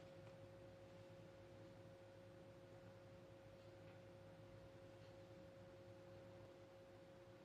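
Near silence, with a faint steady pure tone held at two pitches at once over a low hum.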